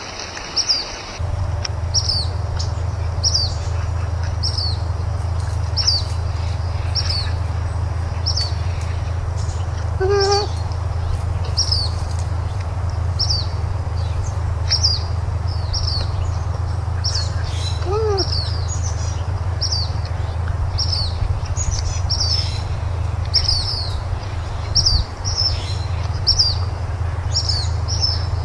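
A bird chirping over and over, short high notes coming more than once a second, over a steady low hum that starts about a second in. Two lower, pitched calls break in, one near the middle and one a little past it.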